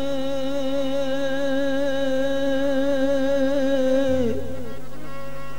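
Qawwali singer holding one long sung note with a slight waver over harmonium; about four seconds in the note slides down and ends, and the harmonium chord sustains alone.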